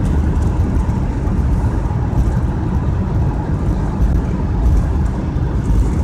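Steady low rumble of a car's engine and tyres at highway speed, heard from inside the cabin.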